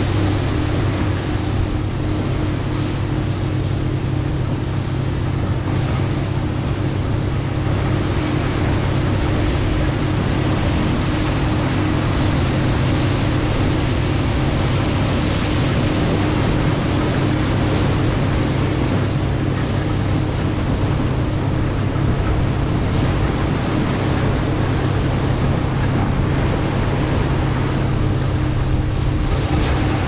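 A steady mechanical hum under a rushing, wind-like noise, unchanging throughout.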